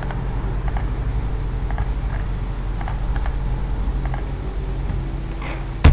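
Scattered clicks of a computer mouse and keyboard while text is copied and pasted, over a steady low hum, with one louder click near the end.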